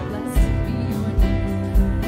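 Live worship band playing: strummed acoustic guitars, electric guitar and keyboard over a drum kit, with a kick drum thumping about every three-quarters of a second.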